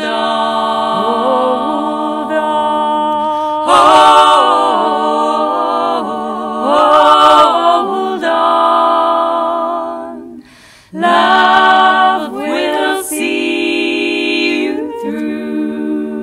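One woman's voice multitracked into four-part a cappella harmony, singing wordless held chords that change every few seconds. The voices break off briefly about ten and a half seconds in, then come back for a final long chord.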